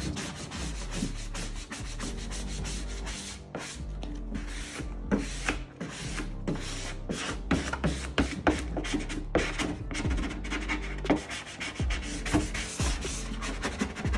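A handheld squeegee rubbing across a vinyl decal on a car hood in many short, quick scraping strokes as the vinyl is pressed down. Background music plays under it.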